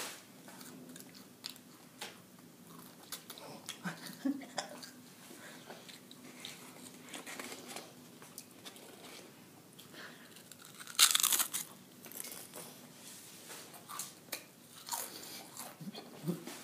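Scattered crunching of snack chips, with a brief louder rustle about eleven seconds in.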